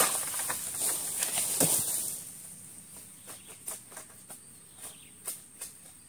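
A sharp crack as a long-pole harvesting sickle pulls through an oil palm frond, then about two seconds of rustling palm leaves that die away. After that, scattered light ticks and knocks from the pole against the fronds, over a steady high insect buzz.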